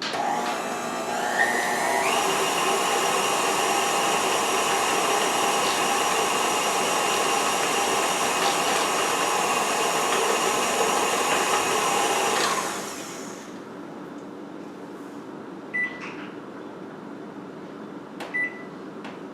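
Electric kitchen mixer beating butter, sugar, egg yolk and vanilla for cookie dough. It spins up, rising in pitch over the first couple of seconds, runs steadily for about twelve seconds, then shuts off. Two short, sharp sounds follow near the end.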